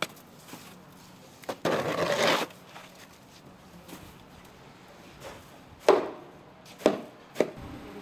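Snow shovel working packed snow and ice on a concrete sidewalk: a sharp knock at the start, a scrape lasting about a second near two seconds in, then three sharp chopping strikes toward the end.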